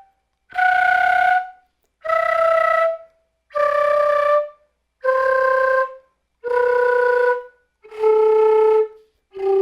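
Quena playing flutter-tongued (frullato) notes, one held note about every second and a half, each a step lower than the last. The low G begins near the end and is held.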